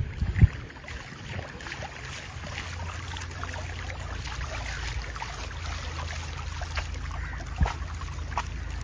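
Water flowing down a small tubewell-fed irrigation channel, with a steady low rumble under it. A few sharp thumps just after the start and a single knock near the end.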